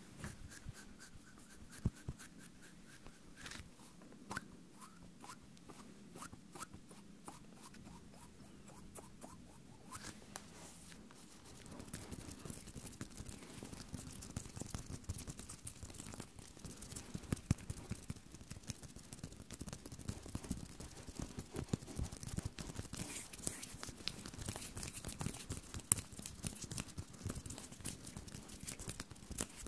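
Close-miked ASMR hand sounds: palms and fingers rubbing and kneading together, a dense crackle of skin friction with small clicks. It grows louder and busier a little before halfway through.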